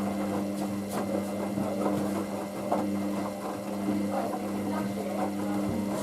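Hoover DYN9144D3X washing machine in its main wash with a load of towels: the drum motor runs with a steady hum, over soft irregular sounds of the tumbling wet load.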